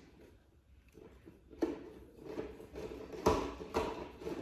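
A few knocks and clunks of parts being handled, after a quiet start: one about a second and a half in, then two close together near the end.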